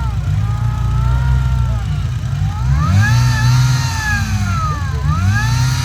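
Off-road race buggy engine revving hard, its pitch climbing about three seconds in, dropping near five seconds and climbing again.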